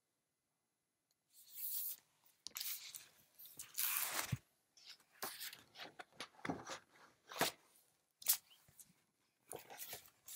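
Paper rustling and crackling as the pages of a picture book are handled and turned, in irregular bursts that begin about a second in.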